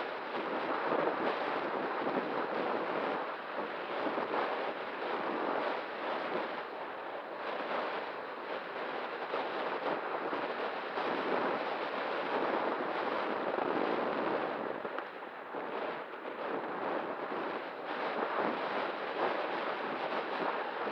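Steady wind rush on the E-flite Night Radian glider's onboard FPV camera in flight, swelling and easing slowly with a faint steady hum under it.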